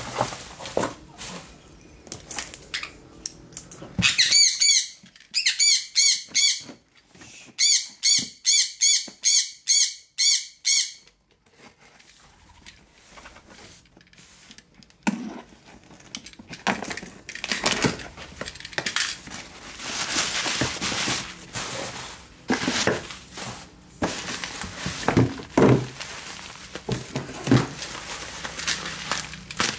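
Plastic packing tape ripped off a cardboard box in a run of short, high, squealing pulls, about eight strokes in quick succession between roughly four and eleven seconds in. After that, cardboard and bubble wrap rustle and crinkle as they are handled, with a few knocks.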